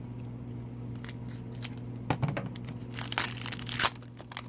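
Foil hockey card pack wrapper being opened, crinkling and tearing in irregular bursts from about a second in, loudest just before the end.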